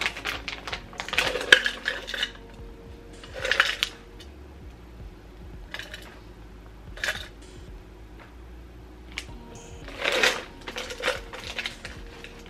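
Plastic smoothie-mix pouch crinkling in several short bursts as it is handled and tipped, with light clinks of pieces against a cup.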